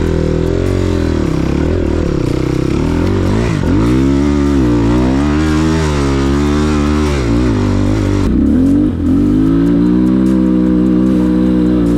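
Dirt-bike engine under a rider's throttle, revving up and down repeatedly, its pitch falling and climbing again several times.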